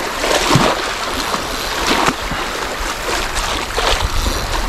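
Water splashing at the shoreline as a small hooked channel catfish is pulled in: a steady wash of water, broken by several short splashes.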